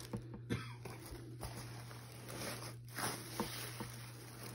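Soft rustling and scuffing of a plush fleece blanket being handled and shifted in a cardboard box packed with crinkle-cut paper shred, with a few faint taps.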